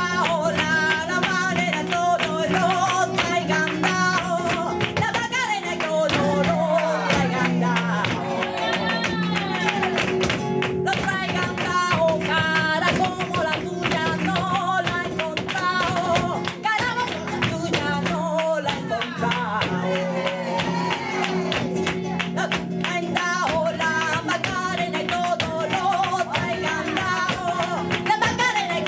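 Live sevillanas: a flamenco singer's cante over a flamenco guitar strummed in steady rhythm.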